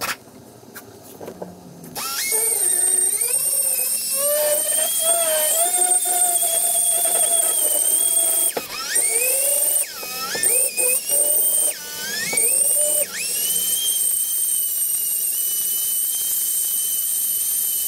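Pneumatic die grinder whining at high speed as it grinds a stainless steel exhaust collector piece. It starts about two seconds in, and its pitch sags each time the bit is pressed into the metal and climbs again as it is eased off. It stops briefly several times, then runs steadily near the end.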